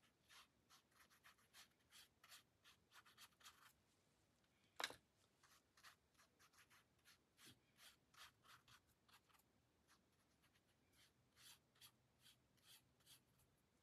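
Faint brush strokes on wet watercolour paper: a round brush dabbing and drawing paint across the paper in a quick run of short, soft scratchy swishes, with one sharper tap about five seconds in.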